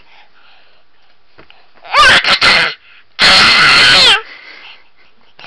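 Baby's excited, happy screams: a short, broken squeal about two seconds in, then a longer, very loud shriek that sweeps up and down in pitch.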